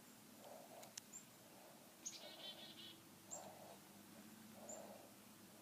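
Faint songbird chirps: four short, high calls about a second apart, the second followed by a brief buzzy trill.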